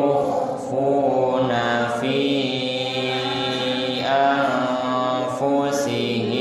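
A man reciting the Qur'an in Arabic in a slow, melodic chant, holding long drawn-out notes that glide in pitch, phrase after phrase with short breaths between.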